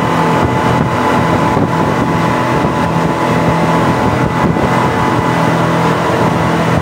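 Speedboat engine running at speed, a steady drone heard from on board over the rush of wind and water.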